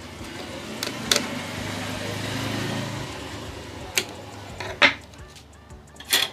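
Handling sounds from fitting a replacement power supply board into a set-top box: a few sharp clicks and knocks, with a steadier, noisy, humming stretch lasting about two seconds near the start.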